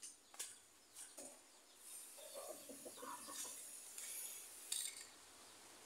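Faint clucking of chickens, with a few light clicks. A soft high hiss of rubbing against the pole runs from about two seconds in.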